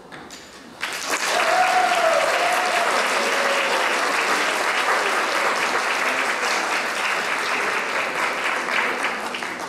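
Audience applauding, starting abruptly about a second in and holding steady, with a short call from someone in the crowd soon after it starts.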